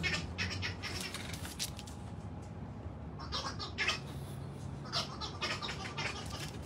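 English bulldog vocalizing in a run of short, broken calls.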